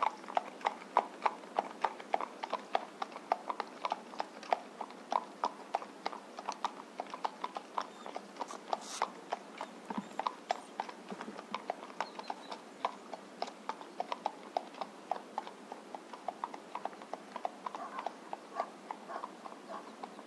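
A horse trotting, its hooves striking a hard surface in a steady clip-clop of about four or five hoofbeats a second.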